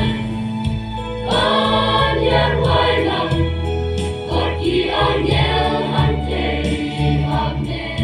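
Choir singing a hymn over sustained organ-like keyboard accompaniment, the voices swelling in about a second and a half in.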